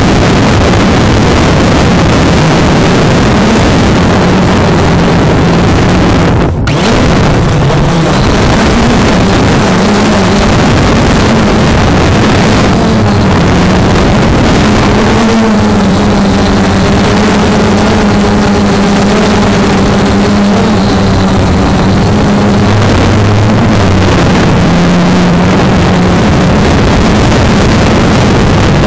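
Quadcopter drone's electric motors and propellers running, a loud steady buzz whose pitch wanders slightly as it flies, mixed with wind noise. The sound cuts out for an instant about six and a half seconds in.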